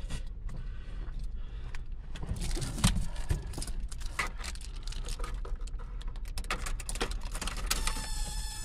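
Irregular clicks and rattles over a steady low rumble. About eight seconds in, a steady tone with several pitches joins them.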